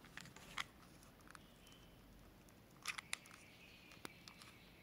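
Near silence with a few faint, short clicks and taps from a hot-melt glue gun being worked to lay a bead of glue.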